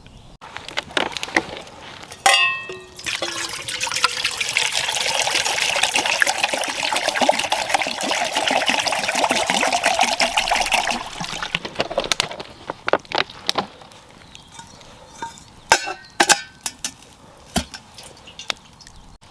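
A steady stream of liquid pouring, starting about three seconds in and stopping about eight seconds later, with a few scattered knocks and clicks around it.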